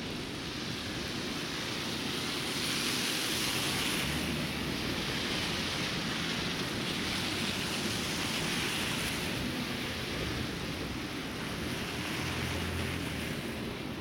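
Outdoor street ambience in a blizzard: a steady rushing noise that swells and eases a few times.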